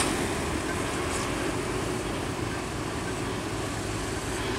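Mitsubishi HD 125 PS medium bus driving away along the road, its diesel engine and tyres making a steady rumble.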